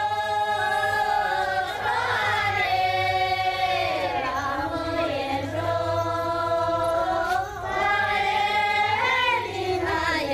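Group of Tu dancers singing an Anzhao dance song together. The notes are long and drawn out with sliding pitch, in phrases that break off about four seconds in and again about seven and a half seconds in.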